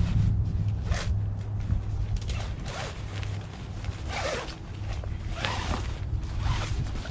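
Zipper on a bivy sack being drawn open in about five short, raspy pulls.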